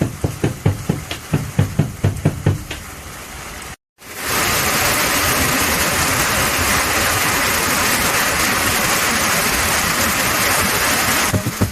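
Korean drum beaten in a quick, uneven rhythm for nearly four seconds. It cuts off abruptly, and after a brief gap comes a steady, loud hiss of heavy rain. The drum strikes return just before the end.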